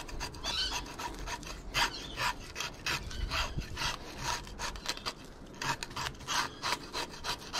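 Hand fish scaler with a serrated ring blade scraping the scales off a King George whiting, dragged against the grain in repeated strokes, about two to three a second.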